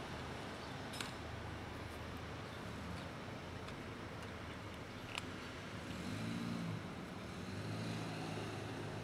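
Low, steady rumble of road traffic, with an engine note swelling briefly about two-thirds of the way through. Twice a sharp click stands out, as a cat crunches dry kibble from a plastic tub.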